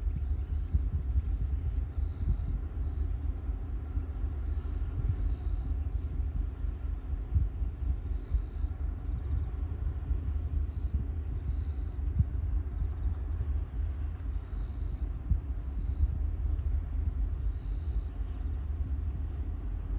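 Wind buffeting the microphone in a gusty low rumble. Over it, insects chirp in short, repeated trills, and a thin, steady high whine runs throughout.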